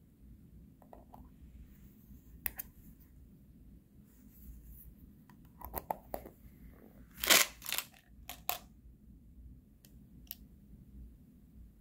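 A small metal airgun-pellet tin being handled and turned over in the hand, making scattered scrapes and clicks. The loudest cluster comes about seven seconds in.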